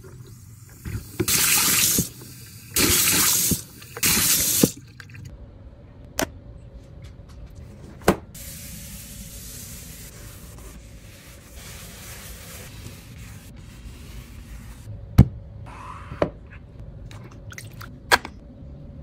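Sink cleaning: four short bursts of running or spraying water in the first five seconds, then a softer steady rubbing hiss of a paper towel wiping the sink, broken by a few sharp clicks and taps.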